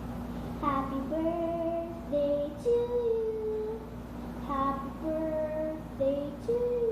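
A girl singing a short tune in a high voice, the same phrase twice, each time starting on a high note and stepping down in held notes, over a steady low hum.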